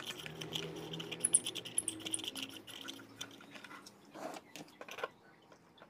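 Handling noise from a lamp socket with an LED bulb and its cable being turned over in the hands: a string of small plastic clicks and rustles, with a couple of sharper clicks about four and five seconds in.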